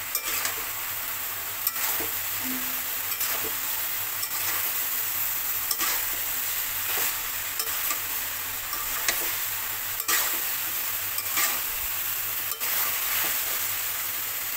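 Metal spatula stirring vegetables in a metal wok as they fry: a steady sizzle, with the spatula scraping and clicking against the pan about once a second.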